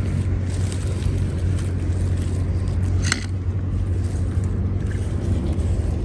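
Car engine running steadily, a low even hum, with a short sharp rustle about three seconds in.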